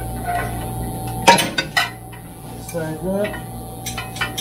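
A wrench clinking against metal fittings while working at the exhaust's oxygen sensor: a few sharp metallic clinks, the loudest a little over a second in.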